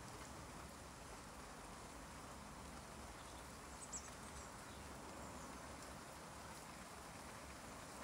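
Steady rain, a faint even hiss, with one brief high chirp about four seconds in.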